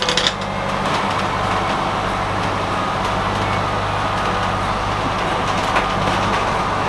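A sailboat's engine running steadily while under way, a constant low drone, with a brief clatter right at the start.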